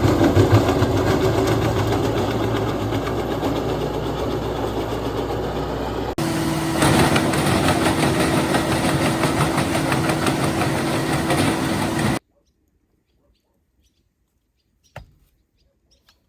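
Tractor-driven ARPAL wood chipper running, a loud, dense mechanical noise. About six seconds in it switches abruptly to a steadier hum with a held tone. The sound cuts off suddenly about twelve seconds in, leaving near silence with one faint tick near the end.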